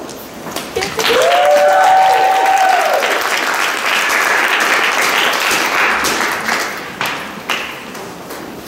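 Audience applauding, with one person's high whoop over the first couple of seconds. The applause thins out to scattered claps near the end.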